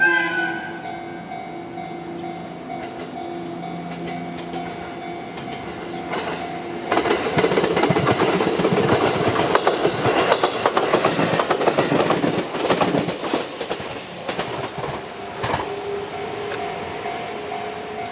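Electric train passing over a level crossing, its wheels clattering over the rail joints loudly for about seven seconds from about seven seconds in. A Japanese crossing warning bell rings steadily before and after the train, and a short horn blast sounds right at the start.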